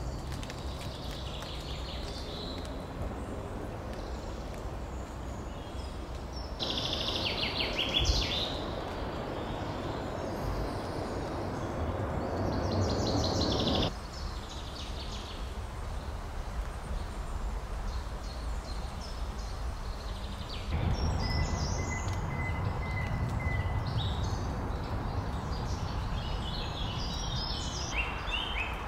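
Woodland ambience: songbirds singing short chirping phrases over a steady low background noise. The background changes abruptly three times, and a thin high whistle holds for a few seconds after the last change.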